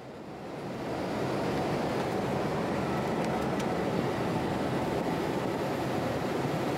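Electric motors of an airline business-class seat running steadily as it reclines into a flat bed. The whirring hum comes up in the first second and then holds steady, with a few faint ticks partway through.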